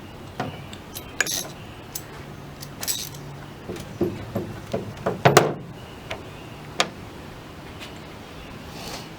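Steel pins and parts of a door hinge pin removal tool clinking and knocking against each other as they are handled and fitted. It is an irregular string of sharp clinks, the loudest just after five seconds in.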